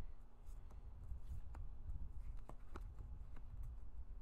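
Lenormand cards being picked from a fanned-out deck and turned face up on a fabric bedspread. Light irregular clicks and slides of card stock sound over soft handling bumps.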